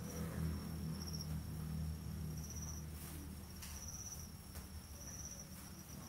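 Cricket chirping in a steady high-pitched trill that swells in brief pulses every second or so, over a low steady hum, with a few faint clicks.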